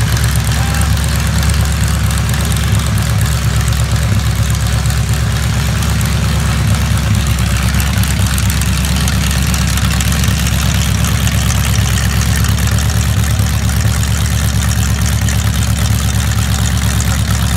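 Ford 302 V8 boat engine with open chrome tube headers idling, loud and steady.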